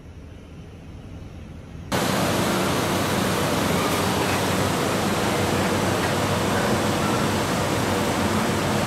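Steady loud rushing noise of a ceramic tunnel kiln running, cutting in abruptly about two seconds in; before that, only a quieter low rumble.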